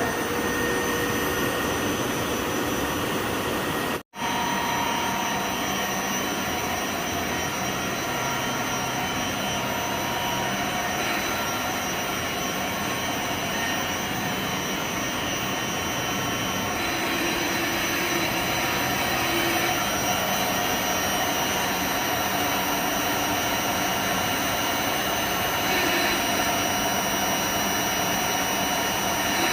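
Booster pump running steadily: an even mechanical whir with thin high whining tones, broken by a momentary gap about four seconds in.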